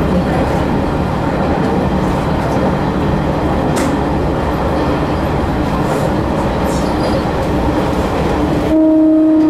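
Sanriku Railway 36-100 series diesel railcar running, a steady rumble of engine and wheels on rail heard from inside the front of the car. Near the end the train's horn sounds one steady note, the warning blast given on nearing a tunnel.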